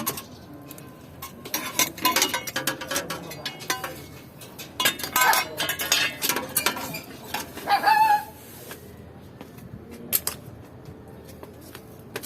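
Hand tools and small metal parts clinking and rattling during car repair work, in two busy stretches of quick knocks and clicks.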